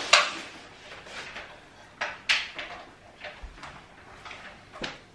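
A few sharp knocks and clacks of hard objects being handled, the loudest right at the start, two more about two seconds in, and one near the end.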